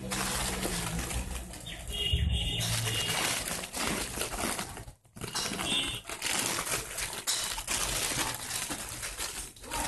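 Crinkling and rustling of thin clear plastic packaging as sealed polyester curtains are handled and lifted, with a brief pause about five seconds in.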